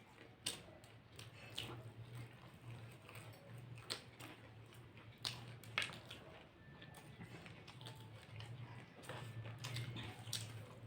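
People chewing and biting into fried snacks such as cutlets and samosas, with scattered short crisp clicks over a low steady hum.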